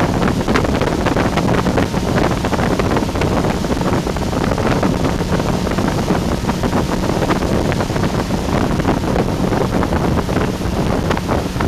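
Motorboat under way at speed: its engine running steadily under the rush of the churning wake and spray, with wind buffeting the microphone.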